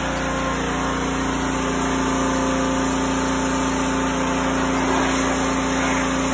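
Pressure washer running steadily with a constant hum, its water jet hissing as it sprays the car's underbody.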